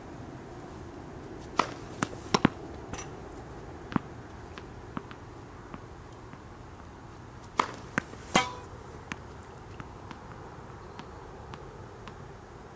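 Sharp tennis ball impacts during serve practice on a hard court: racket strikes and the ball bouncing, in two clusters about a second and a half in and again around seven to nine seconds in. One impact rings briefly. A steady low hum runs underneath.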